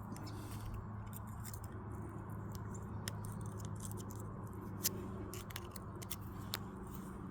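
Scattered light clicks and scrapes of metal parts being worked as the Case 580B backhoe swivel joint is pushed back together past its Teflon backup rings, with a sharper click about five seconds in. A steady low hum runs underneath.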